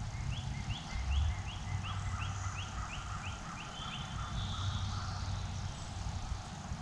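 A series of about a dozen short, quick calling notes, turkey-like yelps, coming a little faster toward the end and stopping about four seconds in, over a low steady rumble.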